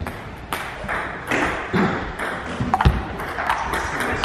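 Table tennis ball in play: a string of sharp ticks as the celluloid ball strikes the rubber bats and the table, spaced irregularly about half a second to a second apart.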